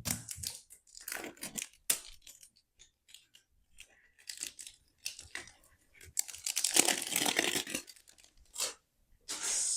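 Packaging of a mini perfume box being torn and opened by hand: scattered rustles, scrapes and clicks, with a longer, louder tearing stretch about six seconds in.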